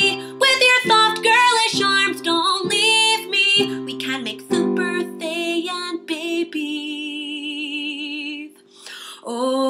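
A woman singing a love song over steady instrumental accompaniment. In the second half she holds one long note with vibrato, then pauses briefly before singing again near the end.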